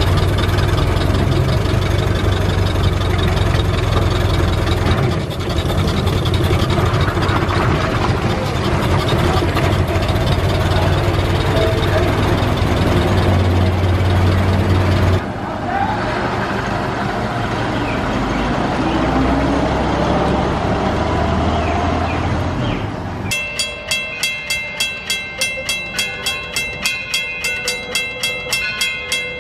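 A 1914 Ford Model T's four-cylinder engine running as the car drives along, a steady low drone that cuts off about halfway through. Near the end a bell rings in a steady rhythm, about twice a second.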